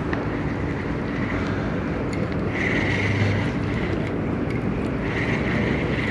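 Baitcasting reel being cranked on a steady retrieve, its gears whirring over a steady rumbling background. A higher whine comes and goes, mostly in the middle and again near the end.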